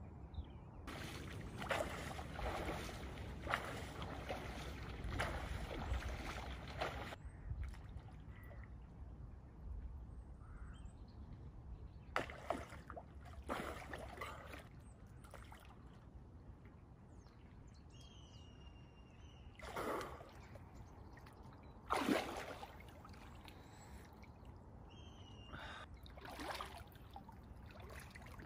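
Water splashing and sloshing as a person swims through a cold river towards the bank and then wades in the shallows. The splashing is dense for the first few seconds, then comes as separate splashes, the loudest about two-thirds of the way in. A bird calls briefly twice in the second half.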